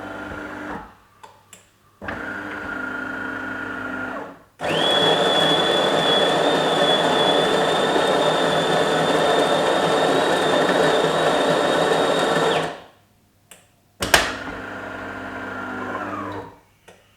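De'Longhi Magnifica ESAM4200 bean-to-cup coffee machine running its brew cycle. Its motor hums in two short spells, then the grinder grinds beans loudly for about eight seconds with a steady high whine. The motor runs again and winds down in pitch near the end.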